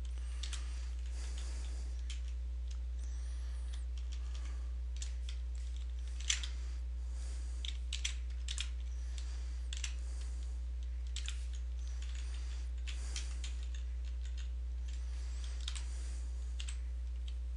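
Typing on a computer keyboard: irregular keystrokes and short runs of key clicks, over a steady low electrical hum.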